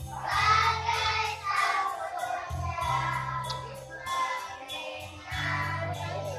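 Group of children singing together over instrumental accompaniment, with a steady bass line that changes note every second or so.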